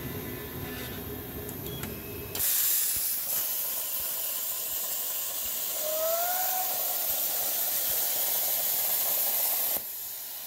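A CNC plasma cutter torch fires about two seconds in and cuts through metal plate with a loud, steady hiss, which stops abruptly near the end. A brief rising whine comes partway through, and a low hum is heard before the arc starts.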